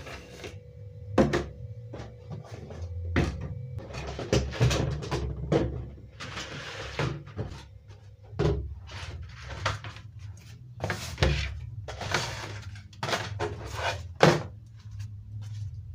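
Kitchen items and cupboards being handled during tidying: a string of separate knocks and clunks, with short scraping and rustling in between, over a low steady hum.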